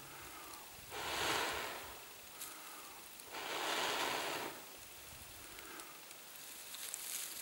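Two long breaths blown into a smouldering tinder bundle, each a soft rushing puff of air lasting about a second: nursing a bow-drill ember until the tinder bursts into flame.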